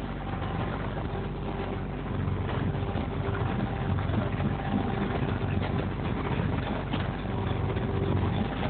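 Boat engine running at a steady pitch, heard from inside the cabin, with the rush of water and hull noise underneath.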